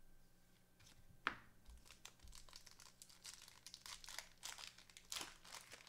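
Faint crinkling and rustling of thin plastic as a trading card is handled and slid into a clear card sleeve. One sharp tap comes about a second in, and the crinkling grows busier in the second half.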